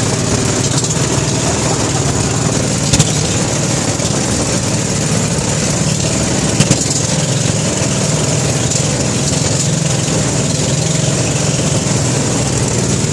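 Motorized outrigger boat's engine running steadily under way, with a constant rush of wind and water. Two brief sharp knocks stand out, about three seconds in and near seven seconds.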